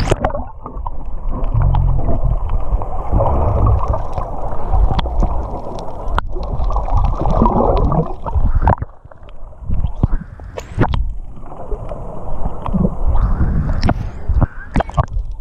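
Muffled underwater sound of water gurgling and sloshing around a submerged camera while snorkeling, with scattered clicks and knocks. The muffling sets in suddenly at the start.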